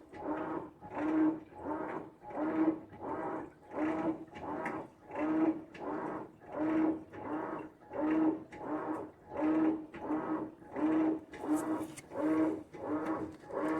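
Whirlpool 8MWTW1934WJM top-load washing machine in its express wash cycle, the motor driving the wash action back and forth with a steady rhythm of strokes, about three every two seconds, each with a low hum and water sloshing.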